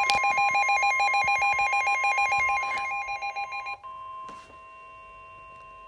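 Weather-radio emergency alert tone: a steady single-pitch warning tone with a fast warbling trill of alternating electronic beeps over it. The beeps stop a little under four seconds in, and the steady tone carries on more quietly on its own until near the end.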